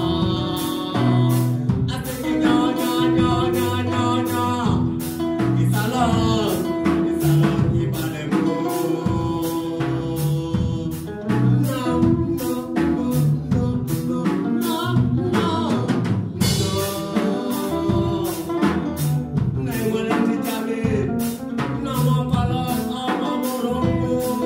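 Live band playing: a singer sings into a microphone over electric guitar, electric bass and a drum kit keeping a steady beat.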